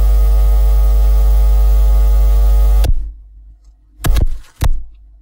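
Electronic glitch-and-static intro sound effect: a loud, steady buzzing hum with hiss that cuts off abruptly about three seconds in, followed by two short loud bursts.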